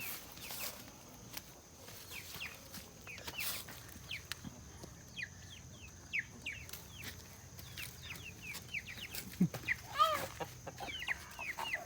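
Chickens clucking: many short, quick calls that slide down in pitch, getting busier toward the end, with one louder call near the end.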